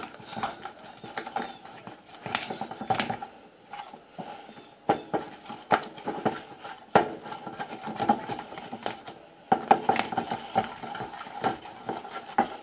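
A wooden chopstick stirring sticky glue-and-detergent slime in a clear plastic bowl, with irregular clicks and knocks of the stick against the bowl.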